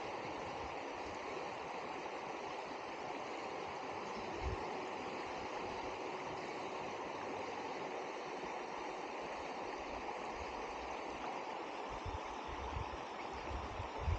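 Steady rush of river water flowing over a shallow stony bed, with a few short low thumps about four seconds in and again near the end.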